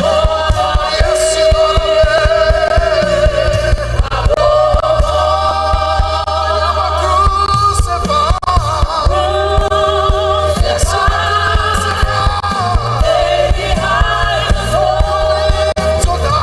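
Live gospel worship music: voices singing long held lines over a band with a steady bass.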